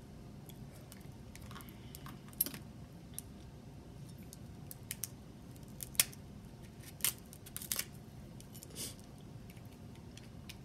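Crab leg shells being cracked and picked apart by hand and with a small metal fork: a scattering of sharp, separate clicks and snaps, about half a dozen louder ones spread through the stretch.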